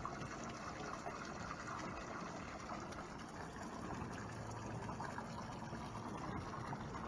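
Water lapping and splashing against the hulls of moored boats, a steady wash of sound.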